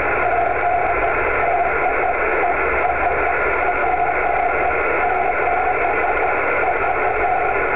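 Morse code (CW) signal received on 10 GHz by rain scatter through a transceiver's speaker: a rough, slightly melodic tone keyed on and off over steady receiver hiss. The tone is smeared and heavily distorted by scattering off raindrops.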